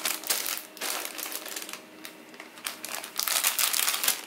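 Clear plastic bags holding model-kit sprues crinkling as they are handled, in crackly spells that ease off briefly around the middle.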